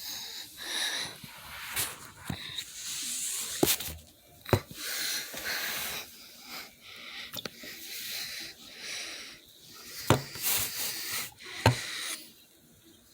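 Close rustling and handling noise in bursts, with several sharp clicks or taps, the loudest about four, ten and eleven and a half seconds in.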